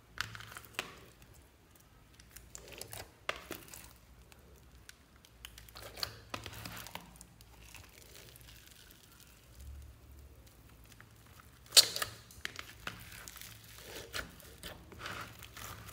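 Hands squishing, stretching and folding slime mixed with soft clay and foam beads in a plastic tub: irregular sticky crackles, clicks and pops, with one sharp snap about twelve seconds in.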